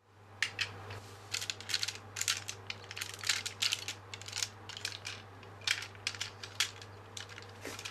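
Plastic toy robot parts clicking and rattling as the Speedor car from the DX Engine-Oh set is handled and transformed, its leg joints snapping into place in many quick, irregular clicks. A steady low hum runs underneath.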